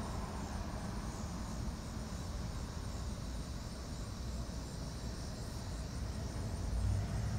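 Outdoor background: a low steady rumble, with a faint steady high chirring of insects above it.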